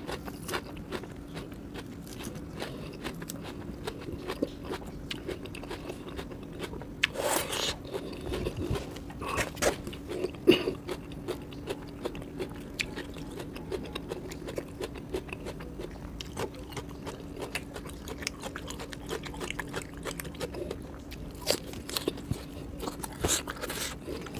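Close-up eating sounds: crunching and chewing of food, with fingers rustling and scraping through sliced onion on a paper sheet, giving many small clicks and crackles over a faint steady hum.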